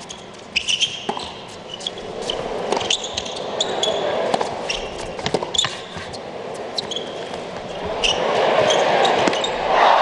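Tennis rally on an indoor court: repeated racket strikes on the ball and short shoe squeaks, over crowd noise. The crowd swells into a cheer near the end as the point is won.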